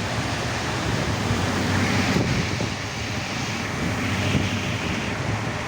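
Steady rushing noise of a rainy road: rain and traffic on the wet street, with wind on the microphone.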